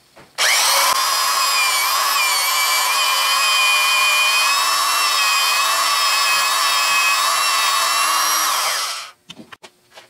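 Right-angle electric drill running under load as a 13/64-inch bit is fed into the Bridgeport mill's cast-iron saddle. It starts about half a second in, runs steadily, and is switched off about nine seconds in, followed by a few light clicks.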